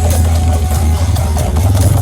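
Loud music played through large sound-system speaker rigs in a sound-system battle, with heavy bass far stronger than everything else.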